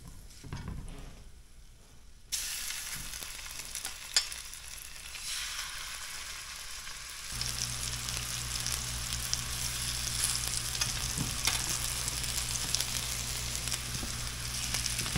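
Floured pieces of bluefish sizzling as they are laid one after another into hot grapeseed oil in a stainless steel skillet. The sizzle starts suddenly a couple of seconds in and gets louder about seven seconds in as the pan fills, with one sharp knock about four seconds in.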